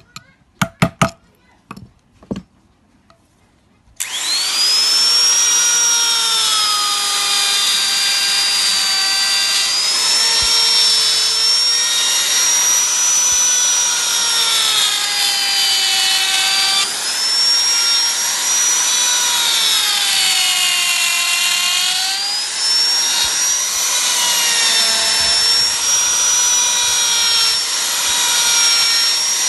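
A few sharp knocks on wood, then a high-speed power tool starts suddenly and cuts into wood. Its whine sags and recovers several times as the motor is loaded and eased.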